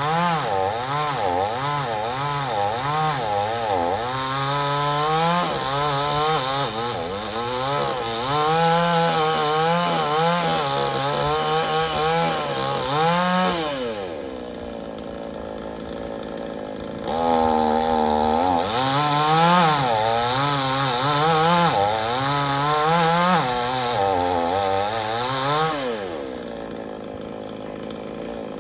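Two-stroke chainsaw cutting wood, its engine pitch wavering up and down under load. About halfway through it drops back to idle for a few seconds, then revs up and cuts again before falling back to idle near the end.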